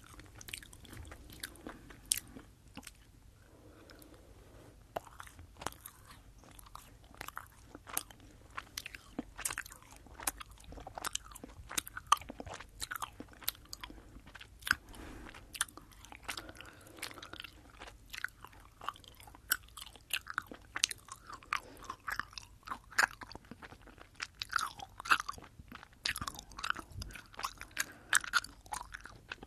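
Close-up chewing of sour sugar-coated Fini gummy candies, a steady run of sharp little mouth clicks and smacks, picked up on a binaural microphone.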